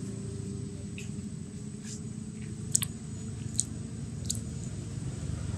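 A long-tailed macaque grooming another's fur, with about five small sharp clicks as it picks and nibbles, over a steady low rumble.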